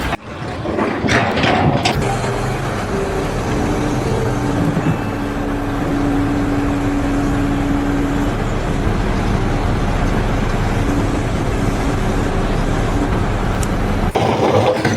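A heavy engine running steadily with a low rumble, a few sharp knocks near the start and a faint steady whine in the middle.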